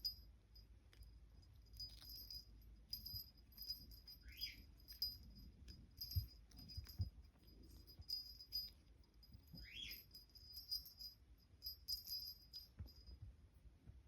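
A small bell jingling faintly in short, irregular bursts, with a few soft knocks and two brief high-pitched calls.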